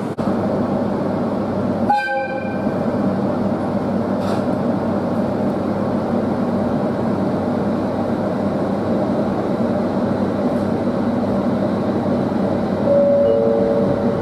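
Inside an IGR Iwate Galaxy Railway electric train running: steady running noise with a hum. A short horn blast sounds about two seconds in, and two steady tones, one higher and then one lower, sound near the end.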